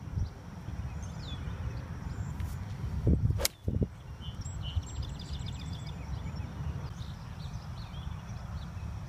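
A golf iron strikes a ball once with a sharp click about three and a half seconds in, with a short swing whoosh around it. Steady low wind rumble on the microphone and faint high chirps run underneath.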